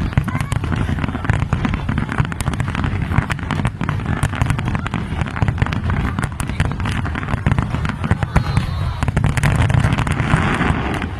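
Fireworks display in full barrage: many rapid bangs and crackles packed closely together over a continuous low rumble.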